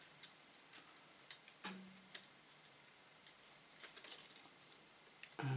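Faint, scattered small clicks and ticks of 8mm film and the projector's sprocket and gate mechanism being handled while the film is laced by hand, with a quick run of clicks about four seconds in.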